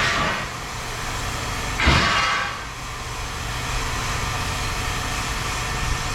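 Scrap metal pieces thrown down, making two clattering crashes about two seconds apart, the second with a heavy thump, over a steady low rumble.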